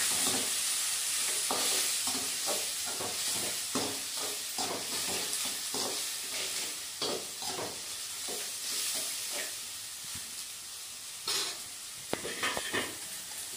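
Onions, tomato and chillies sizzling in oil in a steel kadai while a spoon stirs them, scraping and clinking against the pan in an irregular rhythm. A few louder knocks come near the end.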